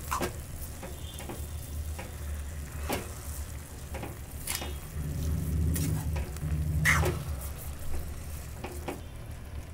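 Spatula stirring and scraping through grated carrots, sugar and milk in a metal kadhai, the wet mixture sizzling softly over the flame. The scrapes against the pan come about every one to two seconds, over a steady low hum.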